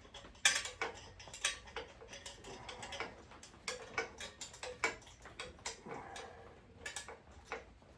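Metal hand tools clicking and clinking, with irregular sharp ticks a few times a second, as a wrench works the exhaust fasteners loose on a motorcycle.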